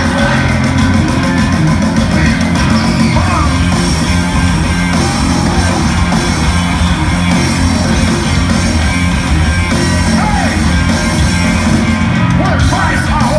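Rap-rock band playing live at full volume in an arena: electric guitar, bass guitar and drums driving a steady heavy groove.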